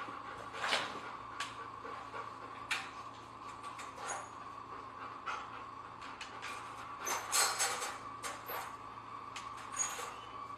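Wire dog crate clinking and rattling in short scattered knocks as a German shepherd noses and paws at it and its door, loudest about seven seconds in, over a faint steady hum.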